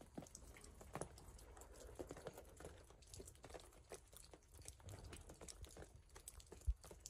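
Faint, irregular ticking and pattering of snow falling on bell tent canvas during a snow storm, with one low thump near the end.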